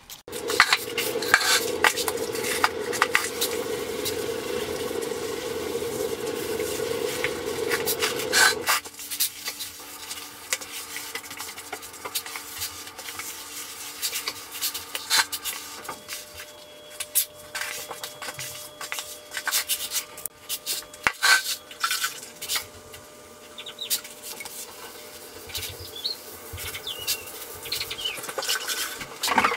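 Grout float scraping and clicking across porcelain floor tile as grout is worked into the joints. Over a steady low noise for the first third that cuts off abruptly, after which lighter scrapes and clicks go on.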